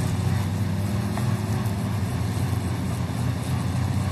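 Several folkrace cars' engines running together on the starting grid, a steady low rumble as they wait for the start.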